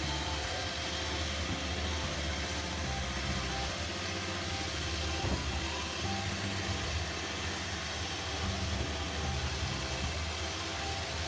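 iRobot Roomba robot vacuum running: a steady motor whir with a hiss from the vacuum and brushes.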